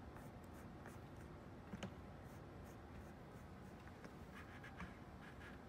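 Faint scratching and handling of a handheld module tool against an LED video wall module as it is worked into place, with one sharp click about two seconds in and a few light ticks near the end.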